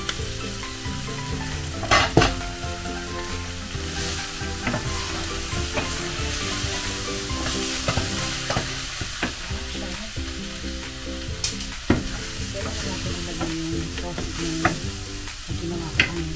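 Chunks of beef and marrow bone frying in a stainless steel Saladmaster skillet, sizzling steadily while a wooden spoon stirs and turns them. A few sharp knocks against the pan's metal come through, the loudest about two seconds in.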